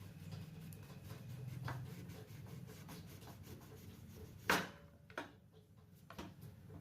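Kitchen handling noise: light rubbing, then one sharp knock about four and a half seconds in and two softer knocks after it, over a low steady hum.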